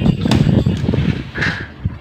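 4x4 puzzle cube being turned by hand: a quick, irregular run of clacks and knocks as its layers are twisted, with a brief higher tone about a second and a half in.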